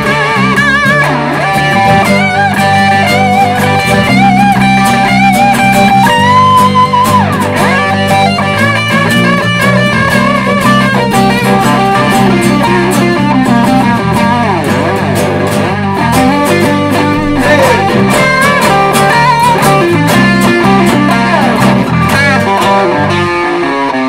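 Blues band playing an instrumental break: an electric guitar lead with bent notes and vibrato over bass and drums.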